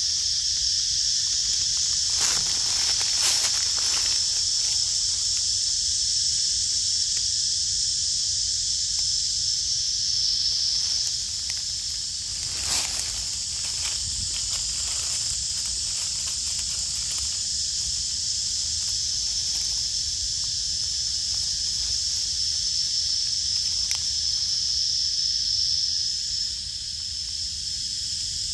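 Steady, high-pitched drone of an insect chorus, with a few short rustles in the dry leaf litter, around two to four seconds in and again near the middle.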